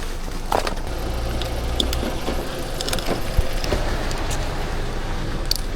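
A car engine idling steadily, with scattered light clicks and knocks over it.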